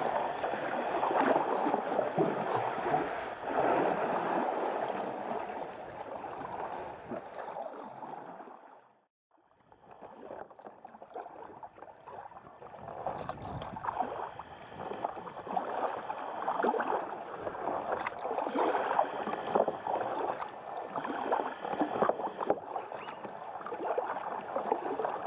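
Sea water sloshing and lapping around a sea kayak, with irregular small splashes. It fades out about a third of the way in and then returns, choppier.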